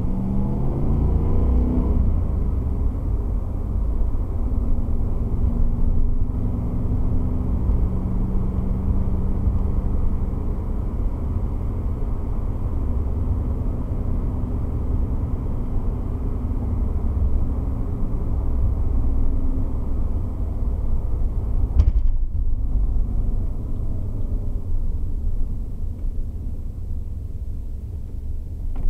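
1989 Camaro IROC-Z's 5.0-litre V8 heard from inside the cabin on the move, rising in pitch as it pulls through a gear in the first couple of seconds, then running steadily with road rumble. A single short knock sounds about three-quarters of the way through.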